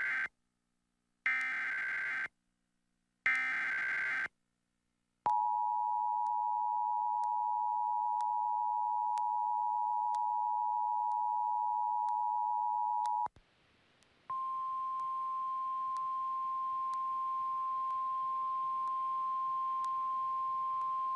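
Emergency Alert System activation for a flood warning: the SAME header, three one-second squawks of digital data with silent gaps between them, then the two-tone EAS attention signal held steady for about eight seconds. After a brief break a single steady tone sounds to the end.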